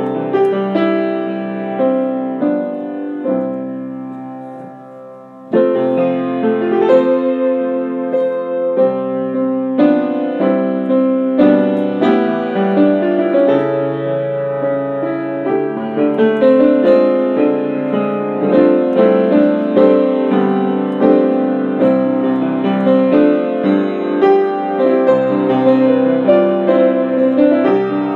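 Solo piano playing a prelude, chords and melody notes left to ring. A held chord fades away a few seconds in, then fuller playing resumes at about six seconds and carries on.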